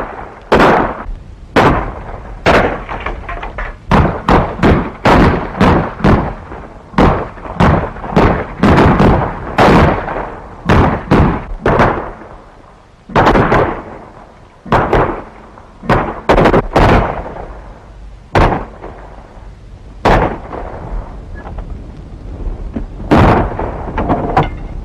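Gunfight: dozens of gunshots at irregular intervals, each with a short echo, coming thick and fast and then thinning out to a few last shots near the end.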